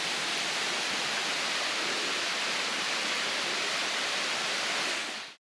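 Waterfall rushing, a steady, bright hiss of falling water heard close by. It cuts off suddenly near the end.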